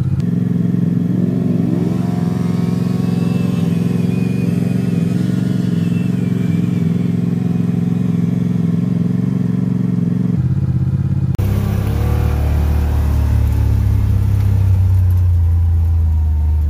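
Side-by-side UTV engines running, one revving up early on and holding its higher speed over a steady idle. After an abrupt cut a little past halfway, a deeper steady engine drone comes from inside a moving side-by-side.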